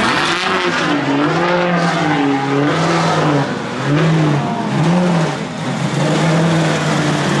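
Sedan-bodied drift car's engine revving hard, its pitch rising and falling in repeated surges about once a second as the car drifts, with a hiss of sliding tyres underneath.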